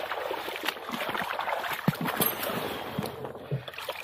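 Shallow rock-pool water splashing and sloshing around wading boots as a weed-covered rock is gripped and turned over by gloved hands, with scattered knocks and scrapes.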